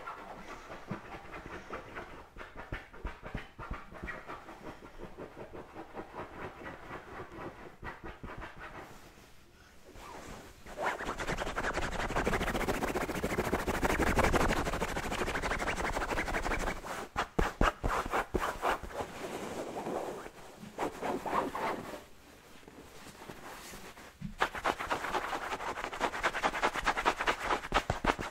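Fingernails scratching and rubbing the fabric cover of a cushion in quick, continuous strokes. Softer for the first ten seconds or so, then louder, dipping briefly a few seconds before the end.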